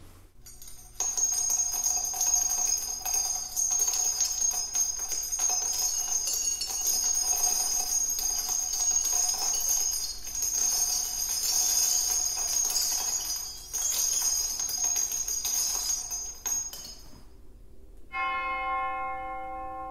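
A recording of .50-calibre brass shell casings dropping and clinking against one another, a dense metallic jingling of many small impacts, played back through Boston Acoustics CR6 bookshelf speakers. Near the end the clinking stops and a church bell starts ringing with long, held tones.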